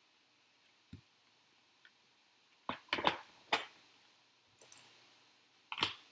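Hard plastic clicks and knocks from a clear plastic component case and the parts in it being handled: a scattered series of sharp taps, bunched in the middle, with a short scrape and one more knock near the end.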